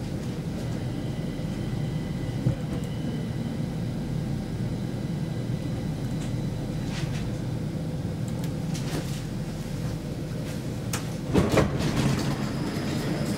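Interior rumble of a Stockholm Metro C20 train running slowly along a platform as it pulls in to stop. A few sharp knocks and clatters come about eleven to twelve seconds in.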